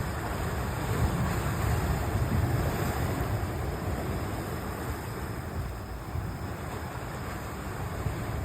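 Steady wind rushing on the microphone over the wash of sea surf, swelling slightly a second or two in.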